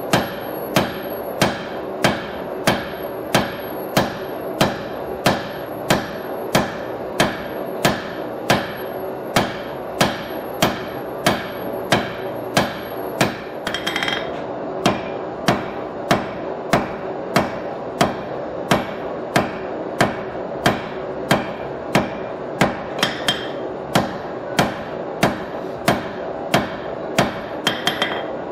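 Hand hammer striking red-hot steel on an anvil in steady, evenly spaced blows, about two a second, drawing out and thinning a thick blade blank. The blows break off briefly a little before halfway, and a few lighter quick taps fall between blows later on.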